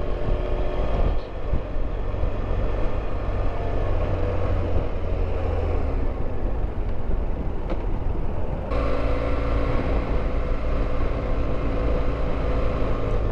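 BMW F700GS motorcycle's parallel-twin engine running at low town speed, heard over a steady rumble of wind and road noise. The sound changes abruptly about two-thirds of the way through.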